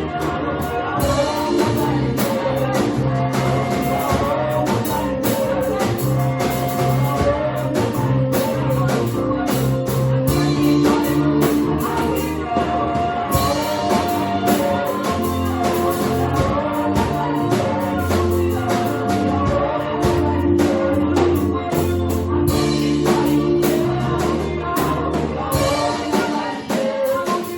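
A choir singing with a live band playing a steady beat.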